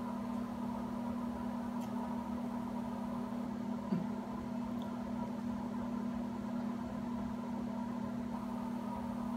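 Steady low hum with fainter higher steady tones over it, like a running appliance or machine, and a single soft knock about four seconds in.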